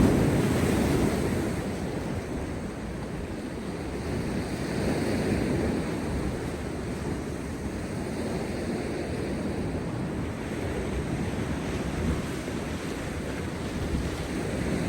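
Heavy sea surf breaking and washing over rocks, a continuous rush with a louder surge at the start and another about five seconds in, and wind buffeting the microphone.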